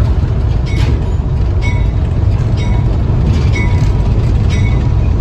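Railway passenger car rolling along the track: a steady low rumble with a short, squeaky clack repeating about once a second.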